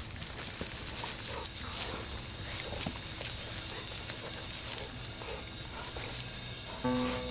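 Two dogs, a yellow Labrador-type and a grey poodle-type, tussling in play-fighting tug-of-war over a toy, with scuffling and dog vocal sounds. Music comes in near the end.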